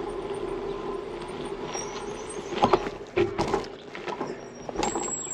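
Bicycle being ridden on a paved street: a steady hum of riding, with a few short knocks around the middle and a thin high tone near the end.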